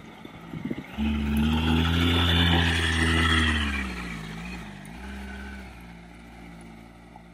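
Adventure touring motorcycle engine running steadily as the bike wades through deep floodwater close by, starting suddenly about a second in. Near the middle its note dips and wavers, and it then fades as the bike rides away.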